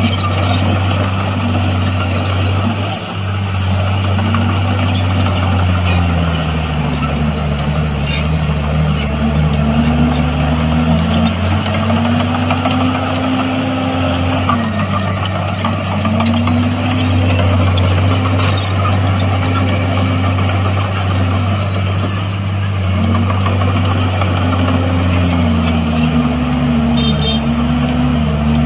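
Bulldozer's diesel engine running with a steady low drone, its pitch rising and falling every few seconds as the machine works.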